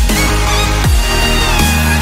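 Loud electronic dance music with a heavy bass that swoops down in pitch again and again, and synth lines over it.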